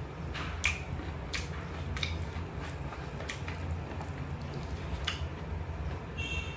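A person chewing a mouthful of rice and chicken liver, with wet lip-smacking clicks about once a second over a steady low hum. A brief high squeak comes near the end.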